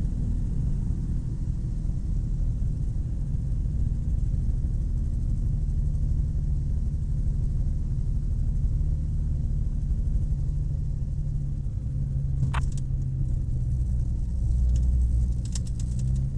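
Rotax 582 two-stroke twin of a Chinook Plus 2 ultralight running steadily as a low rumble heard from the open-sided cockpit, through a ski landing on snow. A sharp click comes about three-quarters of the way through, and a cluster of clicks near the end.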